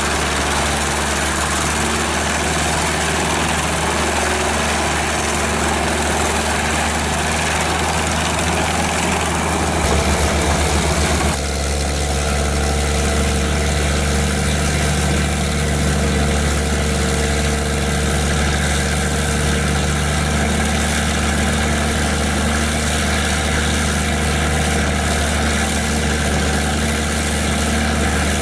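Large wood chipper running steadily with a heavy engine hum. About eleven seconds in, the rougher, noisier sound gives way to a smoother, steadier hum.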